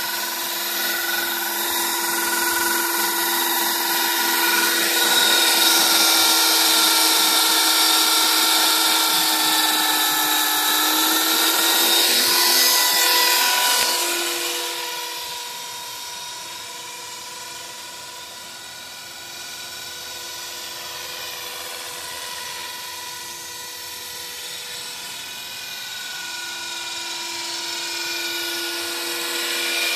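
HK 450 Pro TT electric RC helicopter in flight: a steady high motor and rotor whine whose pitch bends slightly as it manoeuvres. It is loud at first, falls away sharply about halfway through, and climbs back near the end.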